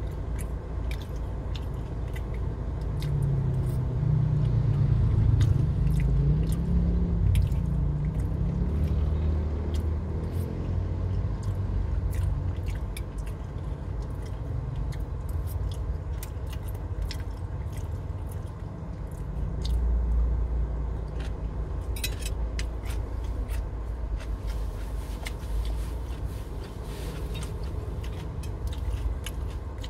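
Close-up chewing and mouth sounds of a man eating soft siomay fish dumplings and batagor in peanut sauce, with frequent small clicks of a metal fork against a glass plate. A low steady car-cabin rumble lies under it all.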